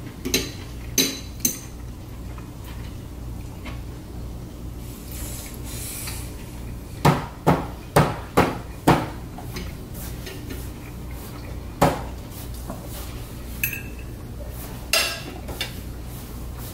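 Knife and fork clinking against a ceramic plate while cutting and eating food: scattered sharp clicks, with a quick run of five about seven to nine seconds in, over a low steady hum.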